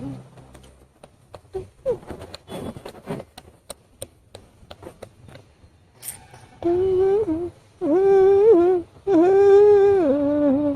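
A woman humming a tune in three long held notes in the second half, after a few seconds of faint clicks and rustling.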